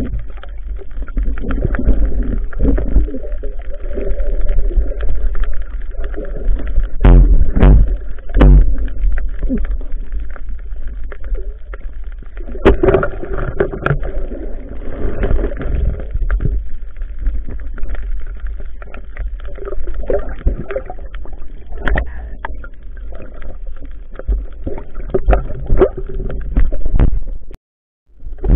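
Muffled underwater sound picked up by a camera during a spearfishing dive: a constant deep rumble of water moving around the camera, broken by irregular knocks and thumps, some of them loud, as the camera and speargun are handled. The sound breaks off briefly near the end.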